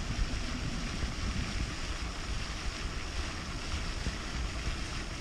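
Wind buffeting the microphone in gusty rumbles, over a steady rushing hiss.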